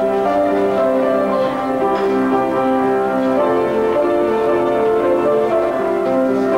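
Music played on a keyboard instrument: a tune of held notes over chords, going on steadily.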